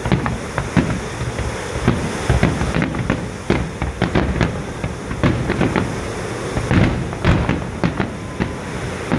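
Fireworks display: aerial shells bursting in quick, irregular succession, a dense run of booms and sharp cracks over a continuous low rumble.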